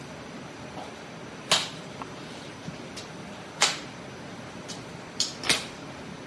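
An Asian elephant feeding on stalks, with sharp snapping cracks as it breaks and crunches them: four loud snaps, the last two in quick succession, and a few fainter ticks, over a steady outdoor hiss.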